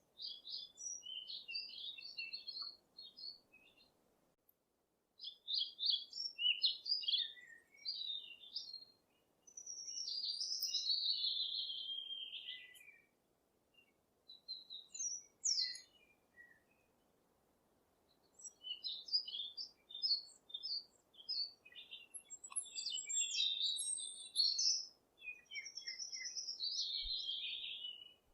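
Songbirds singing and calling in bursts of quick chattering phrases, with pauses between bursts, over a very faint steady rush of a mountain stream.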